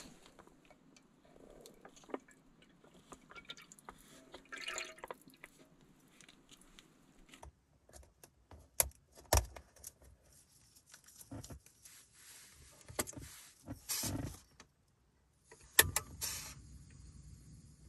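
Scattered clicks, clinks and rustles of small objects being handled, with a few louder knocks about 9, 13 and 16 seconds in.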